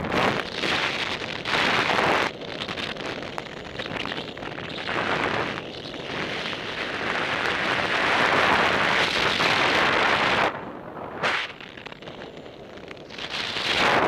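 Airflow of paragliding flight buffeting the microphone: loud wind noise that gusts and surges, dropping away for about two seconds a little after two-thirds of the way through, then coming back.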